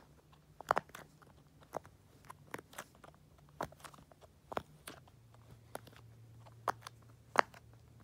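Bubbles of a turtle-shaped silicone push-pop fidget being pressed in on its soft side: about a dozen soft pops at an uneven pace, with two louder ones, one about a second in and one near the end.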